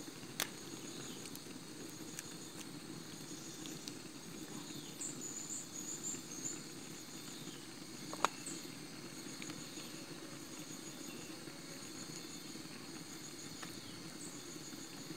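Outdoor ambience of insects buzzing steadily, with a few short high chirps in the middle and a low steady rush underneath. Two sharp clicks stand out, one just after the start and a louder one about eight seconds in.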